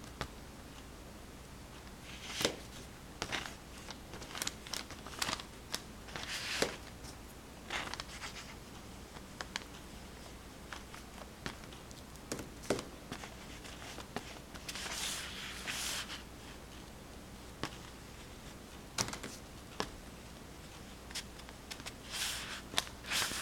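Oil pastel scratching and rubbing across paper in short, irregular strokes, with a few longer rasping strokes and rustling of the paper.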